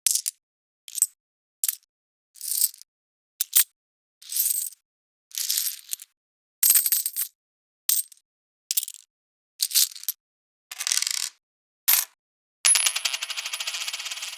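Coins dropping and clinking in a series of short separate clatters, roughly one a second, with silence between them. About twelve and a half seconds in comes a longer run of rapid clinks, like a handful of coins poured out, lasting about two seconds and dying away.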